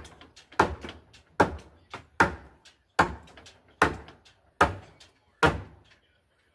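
A hammer striking wood in a steady rhythm, about seven blows a little under a second apart.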